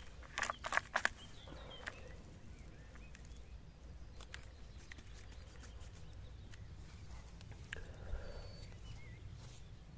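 Quiet outdoor ambience with a low steady rumble, a few sharp knocks about half a second to a second in, scattered lighter clicks, and two short high chirps near the end.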